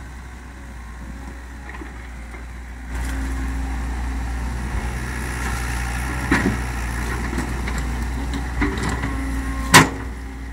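Komatsu PC130 excavator running steadily with a low diesel hum that steps up in loudness about three seconds in. There is a smaller knock partway through and one sharp, loud metallic knock near the end.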